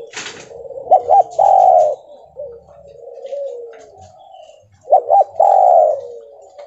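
Spotted dove cooing twice, about four seconds apart. Each phrase is two short rising notes followed by one long coo, with softer cooing in between. A brief noise comes right at the start.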